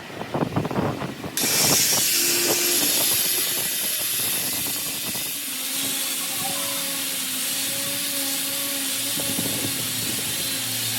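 A few knocks and clicks of metal tools, then, about a second and a half in, a loud steady hiss of a pressurised gas jet starts and keeps going.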